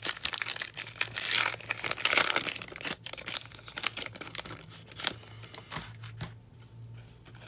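Wrapper of a trading card pack being torn open and crinkled by hand: a dense crackling in the first three seconds, then fainter, scattered crinkles as the cards are drawn out.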